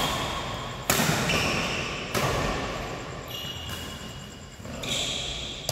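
Badminton rackets hitting the shuttlecock during a rally: sharp cracks that echo in a large hall, three in the first two seconds and another at the end. Short high squeaks of court shoes on the floor come between the hits.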